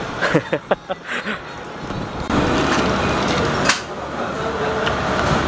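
Steady traffic-like road noise with brief snatches of voices in the first two seconds. The noise steps up abruptly about two seconds in, as at a cut, with a single sharp click partway through.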